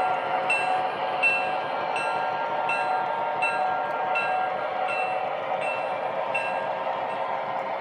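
MTH Premier F7 model diesel's Proto-Sound 3.0 system ringing its bell about every 0.7 s over a steady diesel hum and wheel noise on the track as the train runs past. The bell stops near the end.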